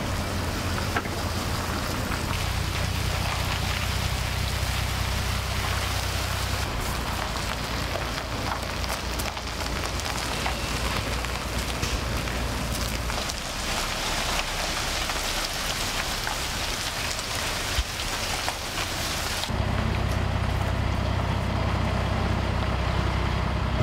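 Heavy truck's diesel engine running at low revs as the tractor-semitrailer with its long load moves slowly, under a steady hiss. The engine rumble weakens in the middle and comes back strong near the end.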